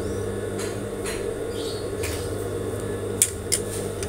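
Steady electric hum of an industrial sewing machine's motor running idle, with a few light clicks and rustles of fabric being handled.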